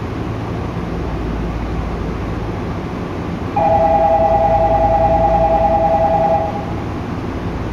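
Steady running noise inside a Tokyu 8500 series train car, with a low hum. About halfway through, a loud two-tone signal, two held notes sounding together, rings out for about three seconds and stops.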